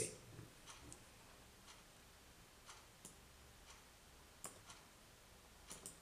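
Near silence with a few faint, short clicks scattered at uneven intervals, the clearest about four and a half seconds in.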